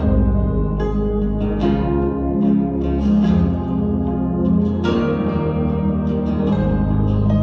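Live band playing an instrumental passage of a slow worship song: strummed acoustic guitar with electric guitars, bass and a sustained pad, without singing.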